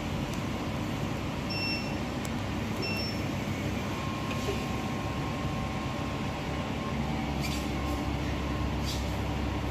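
Steady machine hum and rumble, with a few short high beeps a couple of seconds in and a faint steady tone from about four seconds in.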